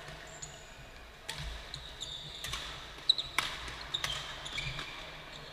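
Badminton rally in a large hall: a few sharp smacks of rackets striking the shuttlecock, the loudest about three seconds in, and sports shoes squeaking briefly on the court floor.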